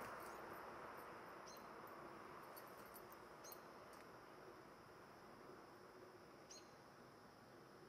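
Near silence: faint outdoor quiet with a few short, high-pitched chirps a second or more apart.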